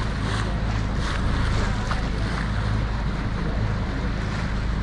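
Steady low rumble and rushing water of a sailboat under way, with wind buffeting the microphone.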